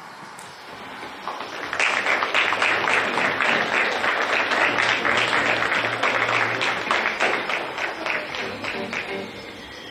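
Audience applauding, the clapping swelling about two seconds in and thinning out near the end.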